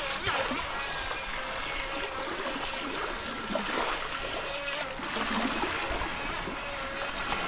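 Small waves lapping and trickling at a pebbly lake shore, with the steady whine of a toy radio-controlled boat's small electric motor running out on the water. The whine breaks off and comes back now and then.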